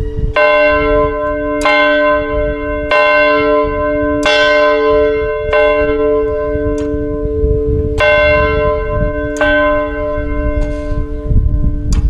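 Large church bell hung in a yoke with a swing wheel, swung so that its clapper strikes about once every second and a quarter. Each stroke rings on into the next over a steady hum, and two or three strokes are lighter than the rest.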